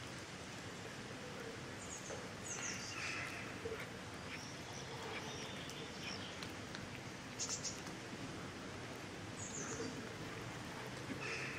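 Steady outdoor background noise, with a few brief high chirps and clicks scattered through, about four separate times.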